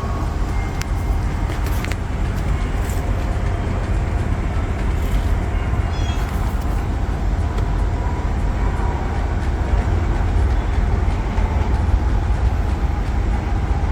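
Steady low rumble of a running car, with a few faint short high chirps.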